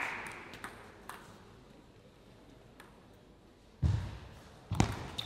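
Table tennis ball knocking off paddle and table in a large hall: a few light ticks in the first second, a quiet stretch, then a serve and return about four seconds in, with sharp knocks about a second apart.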